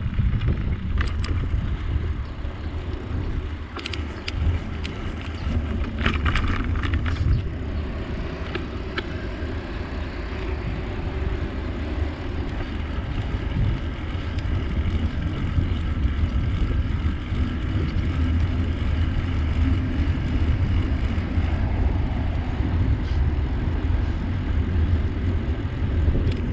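Wind rumbling on the microphone of a camera riding along on a bicycle, with a steady noise of rolling tyres and a few short rattling clicks about four to seven seconds in.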